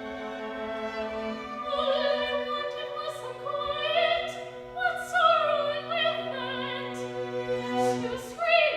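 Soprano singing an operatic aria with vibrato over an instrumental accompaniment that holds long, steady low notes.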